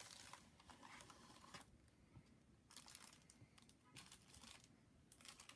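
Faint rustling and crinkling of figure packaging, coming in a few short spells, as a boxed action figure is lifted out.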